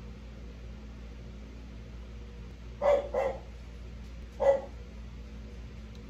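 Dog barking: two quick barks about three seconds in, then a single bark a little over a second later.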